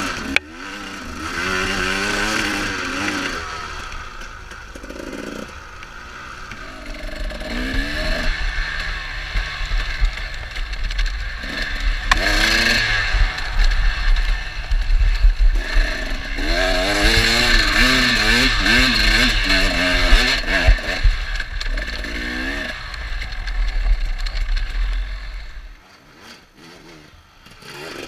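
Dirt bike engine under way on a rough trail, revving up and down again and again as the throttle opens and closes, with a heavy low rumble through the middle. Near the end it drops back to a much quieter, lower run.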